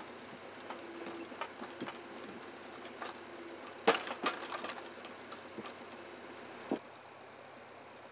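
Scattered metallic clicks and knocks over a faint hum from a Kesla 203T forestry timber crane at work, with a sharp clatter about four seconds in and a single knock near seven seconds.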